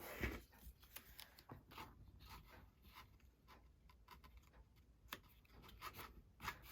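Faint handling sounds of paper and cardstock: scattered light taps and soft rustles, with a slightly louder tap about five seconds in.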